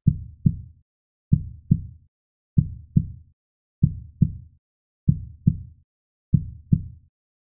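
Heartbeat sound effect: low double thumps (lub-dub) repeating at a slow, even pace, six beats at about one every one and a quarter seconds.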